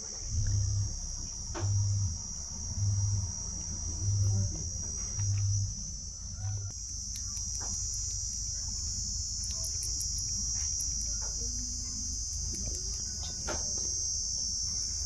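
A steady, high-pitched insect chorus, with soft low thuds about once a second in the first half.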